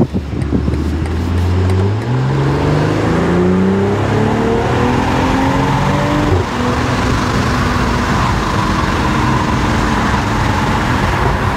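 A BMW X3 M40i's 3.0-litre twin-scroll turbocharged straight-six on its stock exhaust accelerating hard. Its pitch climbs steadily for about six seconds, then it eases off to a steady cruise under loud wind and road noise coming in through the open windows.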